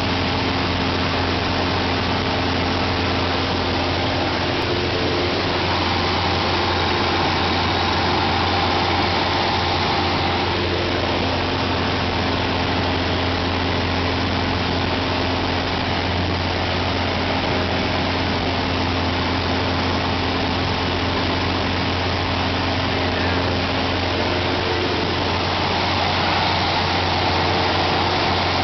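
Single-engine light aircraft's piston engine and propeller running steadily in cruise, heard from inside the cabin as a constant low drone.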